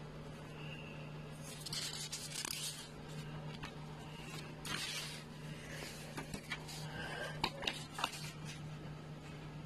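Paper pages of a printed booklet rustling and being turned by hand, in two brief rustles and then a few sharp crinkles and taps, over a steady low electrical hum.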